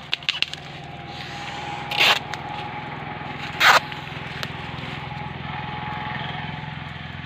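An engine running steadily with a low hum. Two short, loud rushing noises about two seconds and three and a half seconds in, and a few light clicks near the start.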